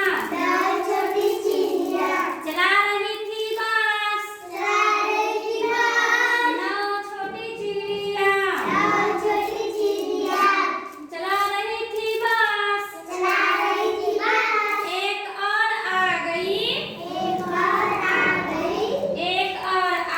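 A child singing a Hindi children's rhyme, unaccompanied, in continuous sung phrases.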